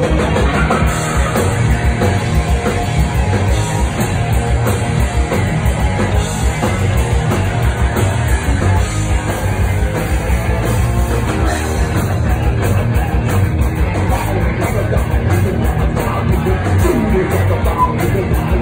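Live punk rock band playing loud: electric guitars, electric bass and a drum kit.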